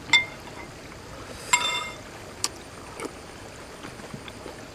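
Metal spoon clinking against a glass bowl of dipping sauce: a short ring right at the start and a longer, brighter ring about a second and a half in, then a couple of soft clicks.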